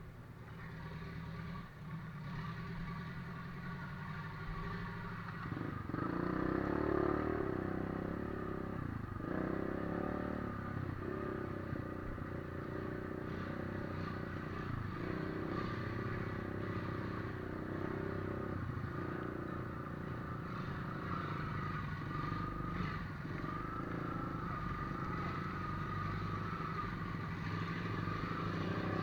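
A 4x4 vehicle's engine running under load off-road. It grows louder about six seconds in and eases off briefly several times as the throttle is lifted, with some clattering over it.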